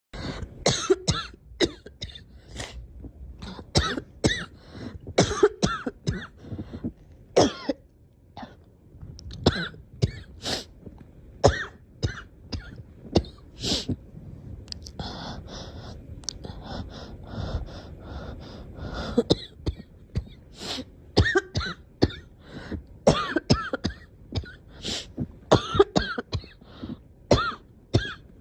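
A girl coughing over and over in short bursts, with a longer unbroken stretch of coughing about halfway through.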